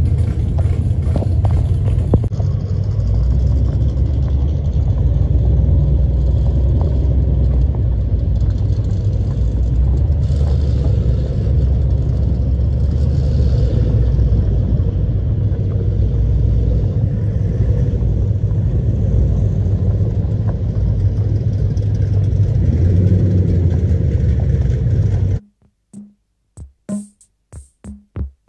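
Low, steady rumble of a car's engine and exhaust with road noise, heard from inside the moving car. Near the end it cuts off suddenly and music with a drum-machine beat takes over.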